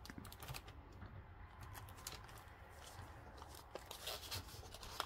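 Faint rustling and crinkling of paper dollar bills and plastic binder sleeves being handled, with a few soft clicks scattered through.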